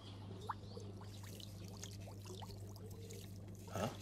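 Aquarium water bubbling and trickling, with many small quick bubble blips over a steady low hum.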